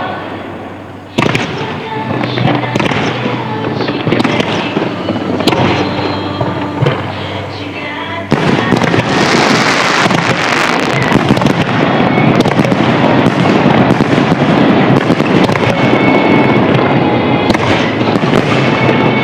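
Aerial fireworks bursting one after another, with music playing alongside. About eight seconds in, the sound jumps louder into a dense, continuous barrage of crackling bursts.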